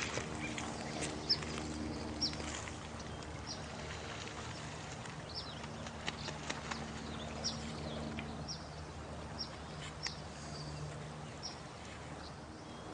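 Night nature ambience: short, high falling bird chirps repeating irregularly about once a second over a steady background haze, with a low steady hum and scattered faint clicks underneath.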